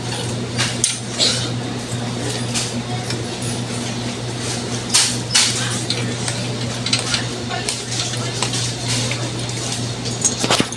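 Convenience-store background: a steady low hum with scattered clinks and clatter throughout, the loudest pair about five seconds in.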